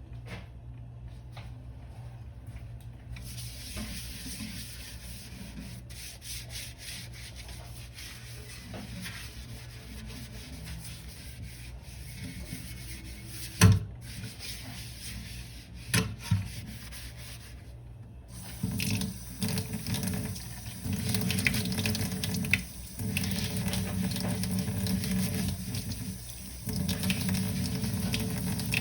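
Dishes being washed by hand at a sink: a sponge or brush scrubbing, and two sharp clinks of dishware about halfway through. Then, about two-thirds of the way in, tap water runs louder into the sink, breaking off briefly twice.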